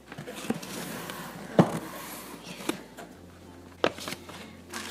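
Rustling of tissue paper and cardboard box packaging being handled, broken by four or five sharp knocks, the loudest about one and a half seconds in.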